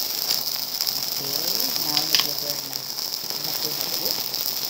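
A bundle of dry glass noodles (sotanghon) burning in open flame: a steady hiss with crackling and a few sharp clicks about two seconds in.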